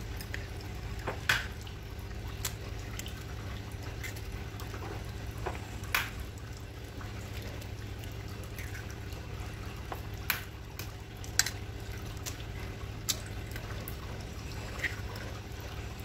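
Eggs cracked one at a time on the rim of a glass bowl and dropped in: a sharp tap of shell on glass every few seconds, about six in all, with a steady low hum underneath.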